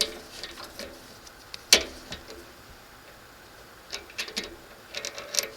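Sharp clicks and clinks of small metal parts and hand tools being handled and set down, one loud knock a little under two seconds in and quicker clusters of clicks near the end; the lathe is not running.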